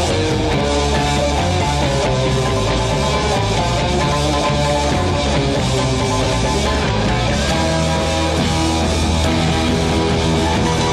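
Rock music with electric guitar and a steady driving beat.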